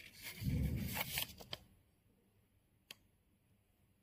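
Rustling and crackling of a paper receipt being handled at a small thermal receipt printer, with dull thumps. A single sharp click follows near the end.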